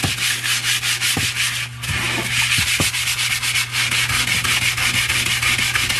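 Hand sanding a wooden cutting board with a folded square of 120-grit sandpaper, in quick back-and-forth strokes, to smooth out the scratches left by 80 grit. There is a brief pause about two seconds in. A steady low hum runs underneath.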